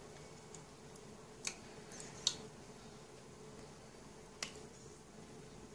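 Hot frying oil in a pot: a faint steady hiss with a few sharp crackling pops at uneven intervals, the loudest a little over two seconds in.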